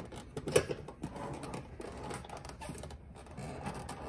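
Sealed steel military ammo can (spam can) being opened with its key opener, the tear strip winding off the lid as a run of irregular small clicks, one sharper about half a second in. The strip is getting tough to pull near the end of the can.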